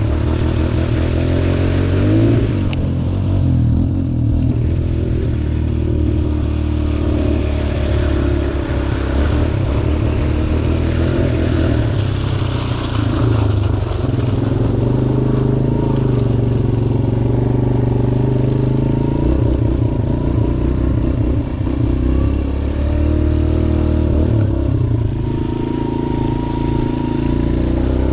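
Suzuki DR-Z125L dirt bike's single-cylinder four-stroke engine being ridden, its pitch rising and falling with the throttle throughout.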